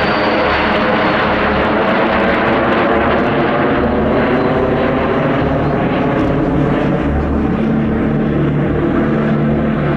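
Fouga Magister jets in formation passing overhead, their Turbomeca Marboré turbojets giving a steady jet roar with a whine that slowly falls in pitch.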